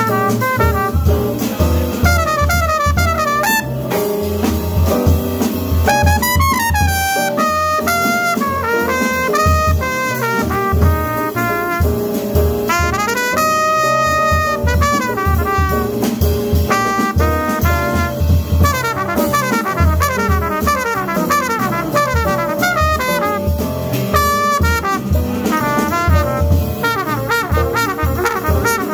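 Jazz quintet playing live: a trumpet plays fast running lines over piano, upright bass and drum kit.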